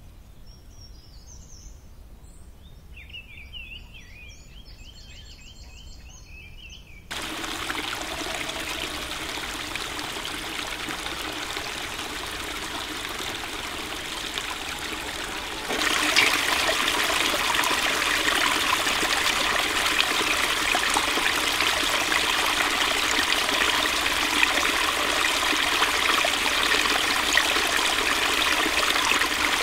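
Birds chirping for the first seven seconds or so. Then a small stream runs and trickles over rocks, steadily, growing louder about halfway through.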